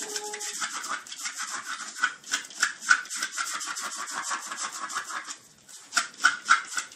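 Terrier scratching rapidly at a doormat with its front paws, digging: a fast, continuous run of claw scrapes on the bristly mat. It breaks off about five seconds in and resumes in a few louder strokes near the end.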